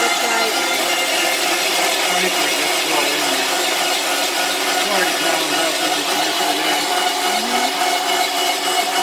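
Electric meat grinder running steadily with a steady motor whine as it grinds raw meat and green tripe.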